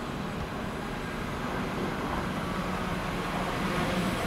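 Diesel train drawing near, a steady engine hum over rail noise that grows louder toward the end.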